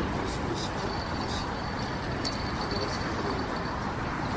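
Steady hum of distant city traffic, with a few faint small clicks over it.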